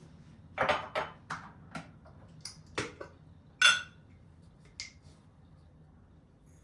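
Kitchen dishes and utensils clinking and knocking against each other: a run of sharp clinks over about four seconds, the loudest one ringing briefly.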